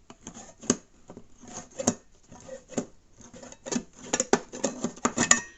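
Leatherman Rev multi-tool's can-opener blade cutting around the rim of a tin can: a string of irregular sharp metallic clicks and scrapes that come closer together near the end.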